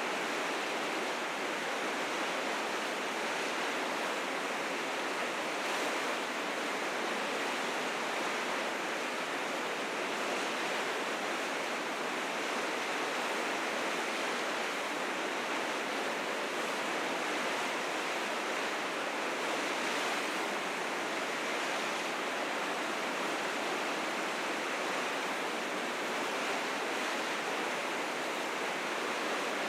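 River rapids rushing steadily, the water swollen with spring snowmelt into fierce currents; a dense, unbroken rush of whitewater with no change in level.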